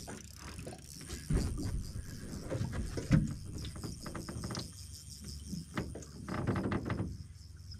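Spinning reel being cranked and rod and tackle handled in an aluminum boat: scattered light clicks and small knocks, with a sharper knock about three seconds in, over a low steady rumble.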